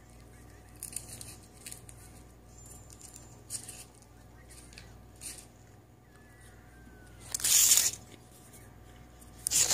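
Rubbing and scraping handling noises on a covered recording phone, in scattered short strokes over a faint steady hum, with one louder rush lasting about a second roughly three-quarters of the way through.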